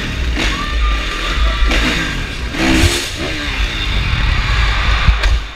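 Kawasaki dirt bike engine revving, its pitch rising and falling about halfway through, under loud rock music.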